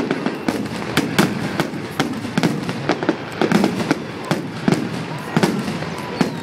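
Fireworks salute going off in a rapid, irregular string of bangs and cracks, several a second, with a few faint whistles among them.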